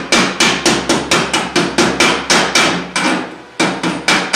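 Chipping hammer rapidly striking a fresh stick-weld bead to knock the slag off, sharp metal-on-metal blows at about four a second, with a short pause a little past three seconds in before the strikes resume.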